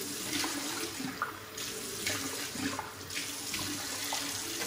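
Cold water running from a bathroom tap into the sink as the face is rinsed, the rush of the stream breaking off briefly twice.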